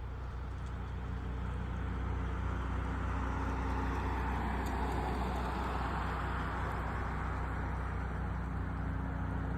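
An aircraft flying past: its rushing engine noise builds gradually to a peak about halfway through, then eases off a little, over a steady low hum.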